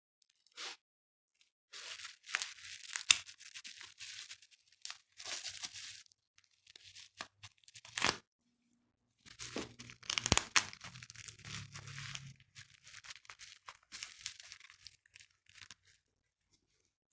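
Packaging of a new iPhone being torn open and crinkled, in irregular rips with a few sharp clicks.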